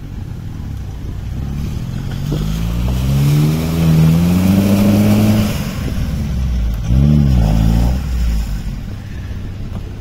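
A 4x4's engine revving hard in mud, its pitch climbing for about three seconds and then dropping, followed by a second short rev about seven seconds in. The vehicle is digging itself in, stuck.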